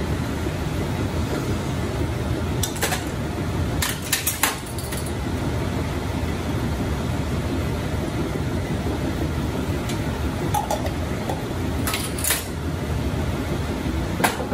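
Metal spoon and kitchen utensils clinking against a jar, measuring cups and a frying pan in a few short clusters, about 3 and 4 seconds in and again around 12 and 14 seconds, over a steady low rumbling background.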